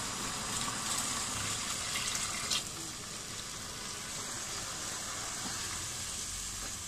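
Hot water poured into a pot of browned, sizzling beef and spices, splashing and gushing into the pot; the pour stops about two and a half seconds in, and the pot carries on bubbling.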